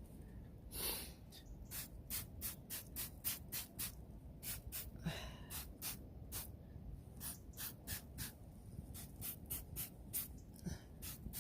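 Trigger spray bottle of Dr. Downpipe exhaust cleaner being pumped onto motorcycle exhaust downpipes: quick hissing squirts, about three a second, in short runs with brief pauses. A breath is heard about a second in and again about five seconds in.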